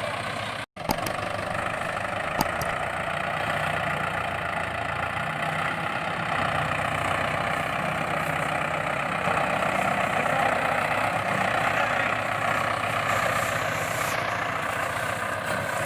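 Engine idling steadily, with a brief cut-out about a second in and a single click a couple of seconds in.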